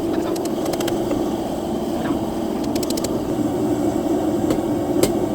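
Forge running with a steady roar, a few light clicks in quick clusters over it.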